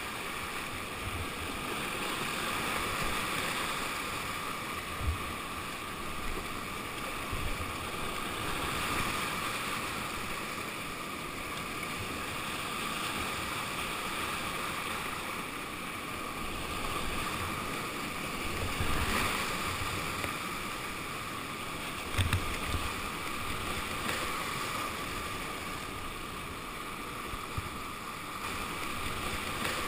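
River water rushing steadily, with a few dull low bumps.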